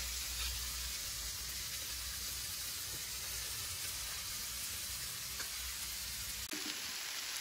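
Mixed vegetables frying in oil in a pan over low heat, giving a steady sizzle with a few faint crackles.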